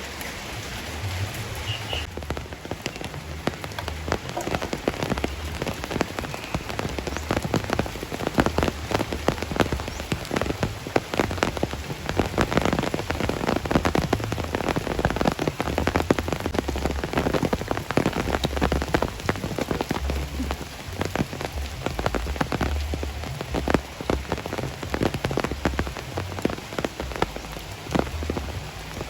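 Steady heavy rain pouring down, with many sharp, close drop strikes.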